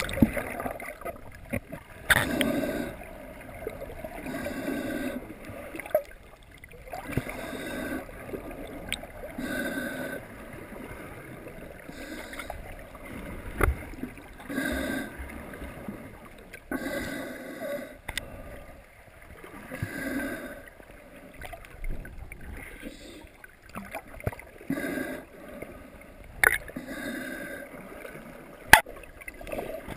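Muffled underwater noise from a snorkeler swimming with the camera held underwater: a whooshing that swells and fades about every two and a half seconds, with a few sharp knocks on the camera.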